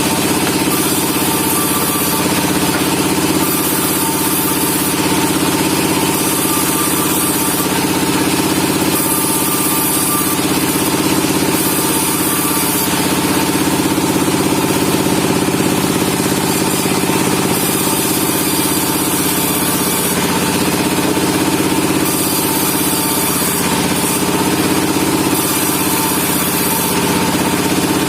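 Sawmill machinery running steadily, with an engine-like drone and a constant hum.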